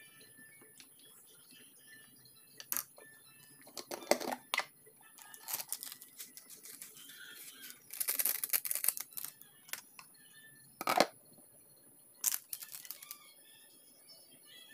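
A plastic ladle clicking and knocking against an electric cooking pot as cabbage is pushed down into the broth, with a dense clatter about eight seconds in and a glass lid clattering onto the pot toward the end.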